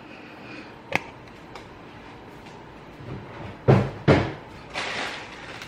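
Kitchen handling knocks: a sharp click about a second in, then two heavy knocks close together a little past halfway, like a cupboard door or a container set down hard.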